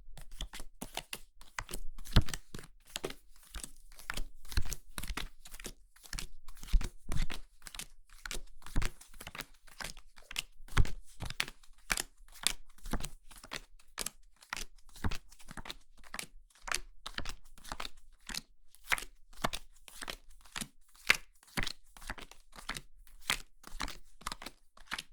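Playing cards being dealt one at a time: a long run of short, crisp flicks, about two to three a second, some louder than others.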